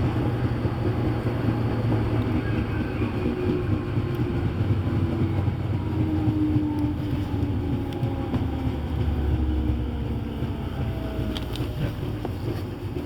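Electric commuter train running on the rails, heard from inside the front car: a steady low rumble of wheels and running gear with faint gliding tones from the motors. The rumble eases slightly near the end.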